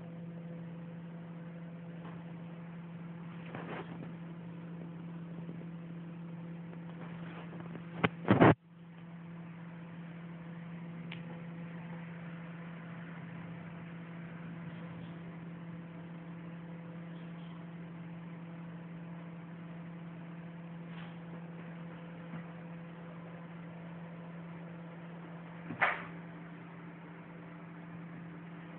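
Steady low electrical hum, broken by a loud double bump about eight seconds in and a single bump near the end.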